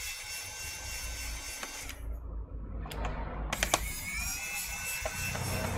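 Pen-style electric screwdriver whirring as it backs screws out of a laptop's plastic bottom panel. The motor stops about two seconds in, a few sharp clicks follow, and it spins up again about a second and a half later.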